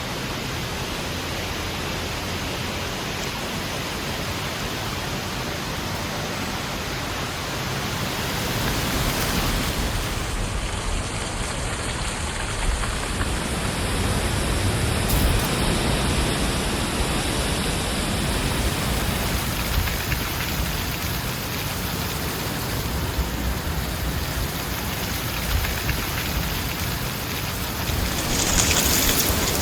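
Heavy wind blowing in a steady, even rush, swelling in gusts and growing louder with a brighter hiss near the end.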